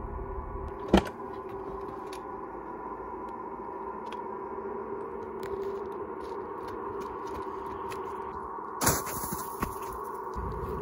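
A steady low drone with held tones, broken by a sharp knock about a second in and a louder thud near the end.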